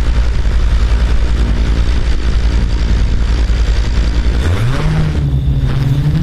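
Small camera drone's motors running at idle on the ground with a steady low hum, then spinning up with a rising pitch about four and a half seconds in as it lifts off.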